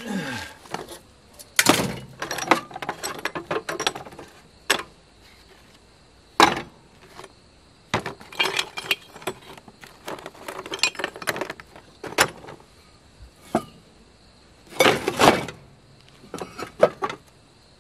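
Rusty scrap car parts clanking and clinking as they are rummaged through and shifted: small metal parts rattling in a plastic bucket and heavier pieces such as brake drums knocking together. The clatter comes in irregular bursts with quiet gaps, loudest about 15 seconds in.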